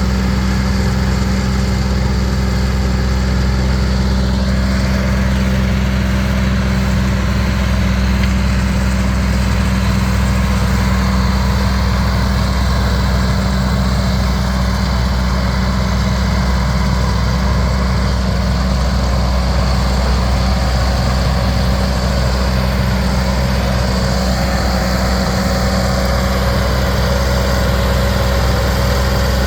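Ford 7000 tractor's four-cylinder diesel engine running steadily at constant speed, a deep even hum with no change in pitch, as it works a Northstar double-chop silage harvester.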